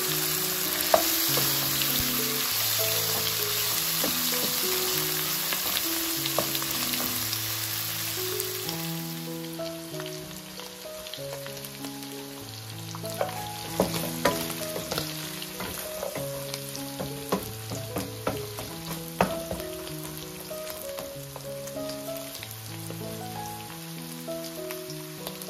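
Boiled mutton pieces and fried onions sizzling in hot oil in a wok as a wooden spatula stirs them, over soft background music. The sizzle dies down after about nine seconds, and the spatula then knocks and scrapes against the pan a number of times.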